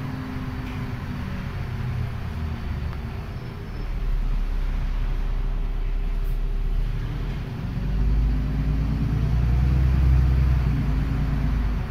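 Interior noise of an articulated city bus riding: a low rumble that grows louder about four seconds in and again near the end, where a whine rises in pitch.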